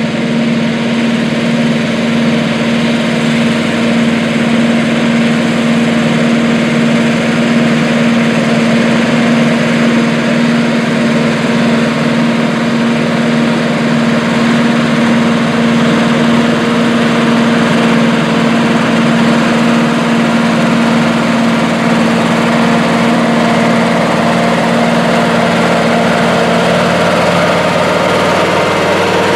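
Allis-Chalmers 440 four-wheel-drive tractor's Cummins V8 diesel running steadily as the tractor drives across a field, a continuous even engine note that shifts slightly near the end.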